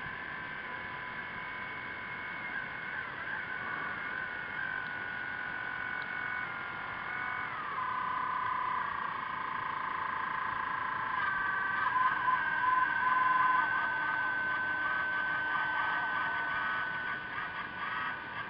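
Electric motor whine from a radio-controlled model submarine, picked up through the water: several high whining tones over a faint hiss. One drops in pitch about 7 seconds in, and from about 11 seconds the tones waver and grow a little louder as the motor speed changes.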